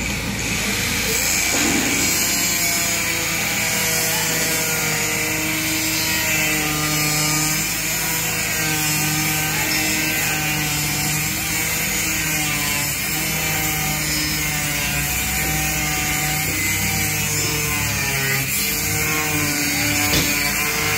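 Angle grinder with an abrasive cut-off disc cutting into metal sheet: a steady, loud grinding hiss over the motor's whine, whose pitch wavers as the disc bites.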